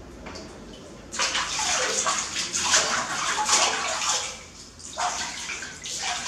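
Water splashing and pouring in a large metal washbasin as hands scoop it over a baby monkey being bathed. The splashing starts about a second in, eases off briefly near the end, then picks up again.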